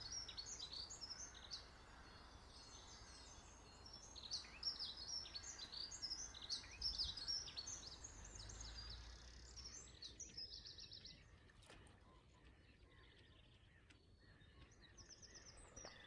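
Small songbirds chirping and singing faintly, many short high calls overlapping for the first ten seconds or so, then thinning out, with a quick trill near the end.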